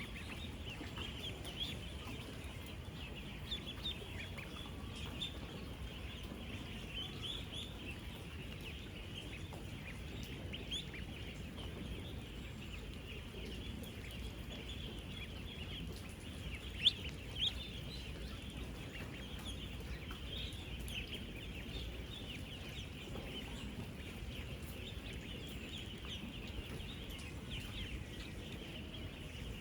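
A large flock of 10-day-old ducklings peeping continuously, a dense chorus of many short high calls over a low steady background noise, with a couple of louder single peeps stand out about halfway through.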